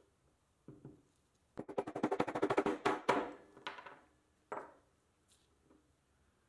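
A fast run of about fifteen sharp metallic raps in under two seconds, as a toy truck's steel wheel hub is driven out of its rubber tire through stacked sockets. A single knock comes before the run and another about a second after it.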